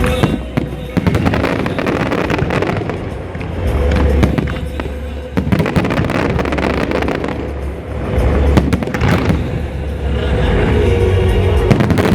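Aerial fireworks going off: dense crackling and sharp bangs over low rumbling booms, thickest in the first few seconds and again about eight seconds in.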